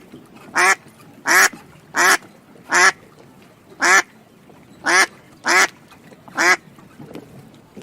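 An animal call repeated about nine times: short, pitched calls roughly two-thirds of a second apart that stop about a second before the end.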